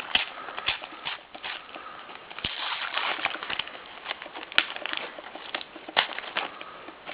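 Crinkling and rustling of a foil sticker packet being torn open, with the paper stickers handled and shuffled: a run of irregular crackles and small ticks.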